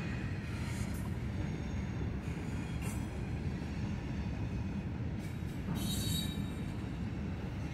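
A cut of freight cars rolling slowly on the yard track, shoved from the far end: a steady low rumble of steel wheels on rail, with faint wheel squeals a few times.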